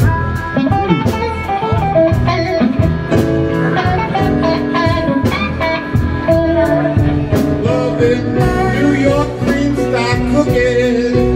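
Live blues band playing, with electric guitars over a drum kit keeping a steady beat.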